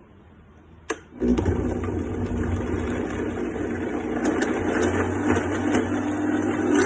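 Countertop blender switched on with a click, its motor starting about a second in and running steadily as it blends watermelon flesh and peeled whole limes, growing slightly louder near the end.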